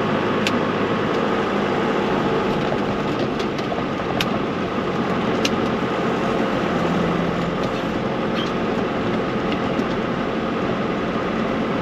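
Vehicle engine idling steadily, with a few faint clicks.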